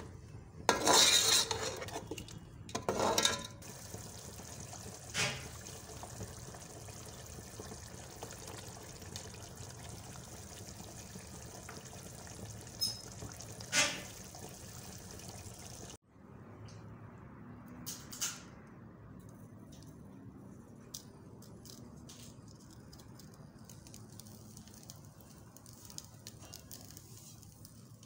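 A curry simmering in an aluminium pot: a steady bubbling hiss with an occasional pop. A metal spoon scrapes and clinks against the pot a few times in the first few seconds.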